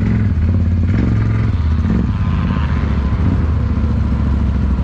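ATV (quad bike) engines running steadily.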